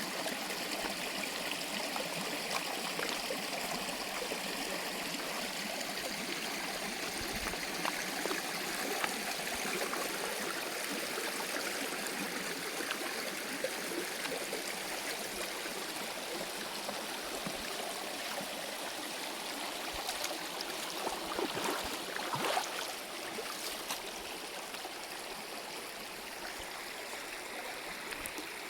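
Stream water running over rocks, a steady rushing and babbling flow. A few louder sharp sounds come through about two-thirds of the way in.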